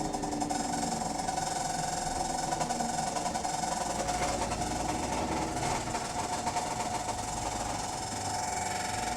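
Bus's Voith automatic gearbox whining loudly over the diesel engine while the bus is driving, heard from inside the bus. It is one steady high whine that wavers slightly in pitch.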